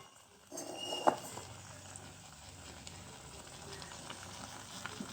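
Ambul thiyal (fish pieces in a sour curry mixture) faintly sizzling as it cooks in the uncovered pot, with a single light knock about a second in.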